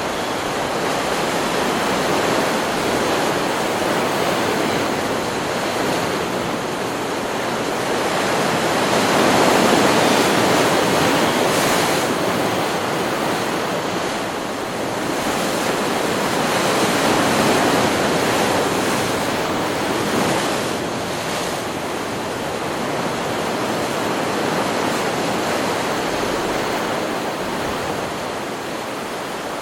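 Ocean surf: waves breaking and washing ashore in a continuous rush, swelling louder about a third of the way in and again a little past the middle.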